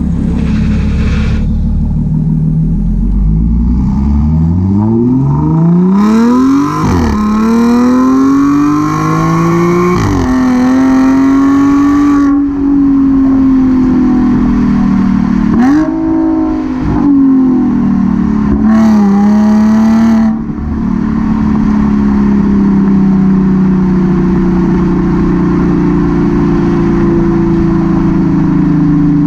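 Audi S5's supercharged 3.0 V6 through an AWE Touring cat-back exhaust, accelerating hard with the pitch climbing, then dropping sharply at upshifts around 7 and 10 seconds. After brief lifts off the throttle between about 16 and 20 seconds, it settles into a steadier running note.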